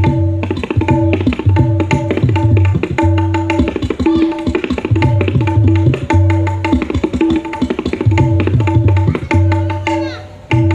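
Dangdut gendang, a tabla-style pair of hand drums, played in a fast koplo rhythm: dense strokes on the high drum ringing at a fixed pitch, mixed with low, booming bass-drum notes that are held and repeated. The playing breaks off briefly near the end, then picks up again.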